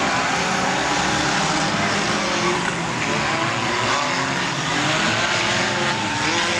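Engines of several mini stock race cars running and revving together on the track, their pitches rising and falling over one another.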